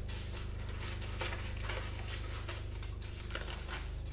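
Two pairs of scissors snipping through folded paper in short, irregular cuts, over a steady low hum.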